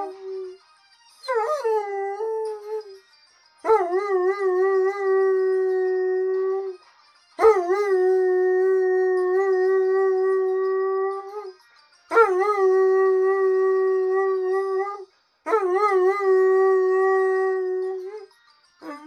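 Wolf-hybrid dog howling, set off by a mobile phone's ringtone. Five long howls, each starting with a wavering rise in pitch and then held on one steady note for two to four seconds, with short pauses between.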